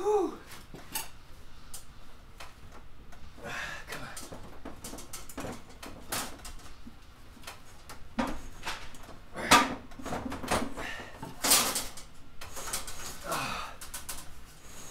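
Electrical wires and a fish tape being hauled by hand through metal EMT conduit: irregular scraping, rustling and clunks of wire and tape against the conduit and box, with two sharper knocks in the second half.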